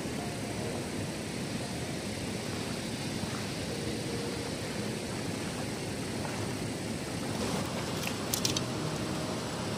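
Steady low rushing of a fast, muddy flooded river, with a few brief rustling clicks near the end.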